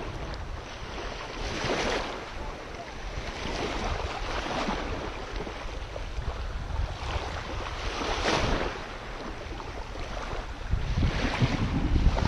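Small waves lapping and washing onto a sandy shore, swelling every few seconds, with wind rumbling on the microphone, strongest near the end.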